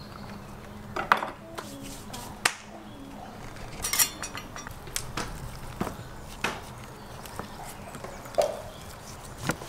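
Handling sounds: scattered sharp clicks and knocks about once a second, with a cluster of metallic clicks about four seconds in as a metal gate latch is worked. They sit over a steady low hum.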